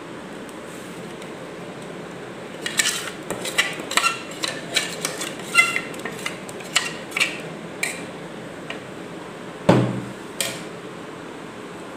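Stainless steel mixer-grinder jar clinking and knocking against the bowl as the last of the dosa batter is tapped out: a quick run of sharp metallic clinks, then a heavier thud and one more knock near the end.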